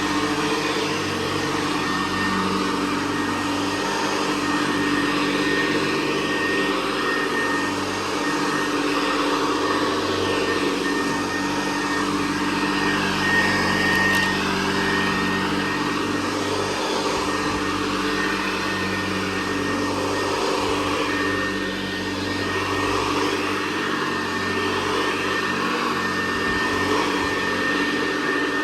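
Hoover Convertible Model 68 upright vacuum cleaner, a direct-air machine, running steadily: a motor-and-fan hum with a thin high whine, its level rising and dipping slightly.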